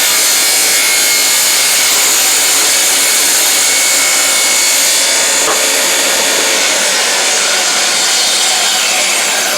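Shopsmith table saw ripping a glued-up wooden board, the blade cutting steadily through the wood.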